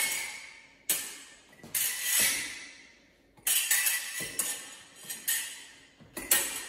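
Steel foil blades striking each other in parries and beats: about ten sharp metallic clinks, irregularly spaced and some in quick pairs, each ringing briefly and dying away.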